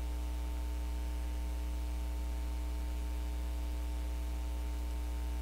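Steady electrical mains hum with a faint hiss, unchanging throughout.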